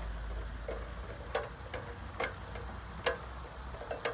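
Ratcheting clicks from a basketball hoop's height-adjustment jack as it is cranked up: a series of sharp clicks, about two a second, unevenly spaced.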